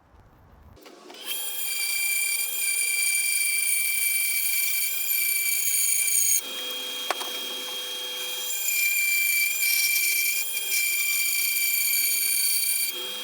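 Woodworking power saw running and cutting through a wooden neck blank, a steady whine of several high tones. It starts about a second in, dips for a couple of seconds midway, with a single click, and stops near the end.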